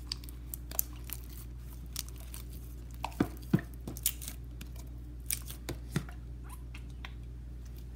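Glossy homemade slime being worked by hand, giving irregular sharp clicks and small pops, the loudest a few seconds in.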